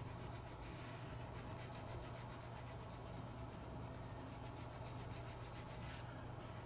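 Graphite pencil rubbing on sketchbook paper in small circular shading strokes, a steady faint scratchy rasp. A drier, harder pencil is being worked over the darker graphite to fill the grain of the paper.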